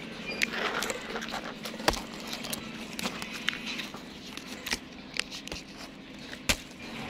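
Leaves rustling and twigs snapping as citrus branches are handled, with several sharp clicks over a steady low hum.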